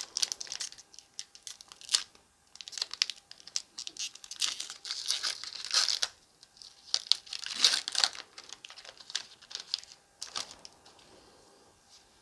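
Foil Pokémon booster pack wrapper being torn open and crinkled: a run of short tears and crinkles that stops near the end.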